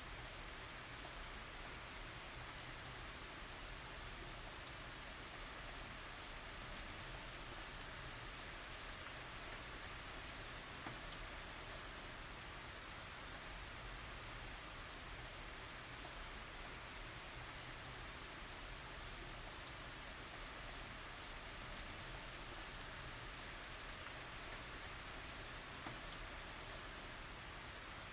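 Steady tropical rain falling, with fine drops pattering on surfaces and a few louder individual drops.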